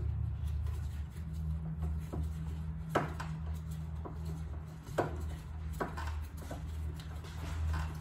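A screwdriver clicks and taps against the metal hardware of a Kwikset door knob, with two sharp clicks about three and five seconds in and a few fainter ones. A steady low hum runs underneath.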